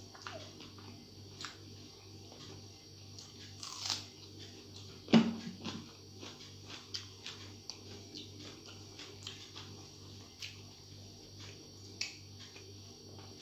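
Close-up eating sounds: fingers mixing rice and a person chewing, with many small wet clicks and smacks over a steady low hum. There is one louder knock or thump about five seconds in.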